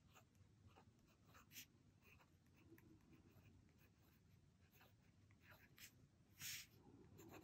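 Faint scratching of a Jinhao 82 fountain pen's steel nib writing on notebook paper, a few light strokes, with one short, slightly louder rub near the end.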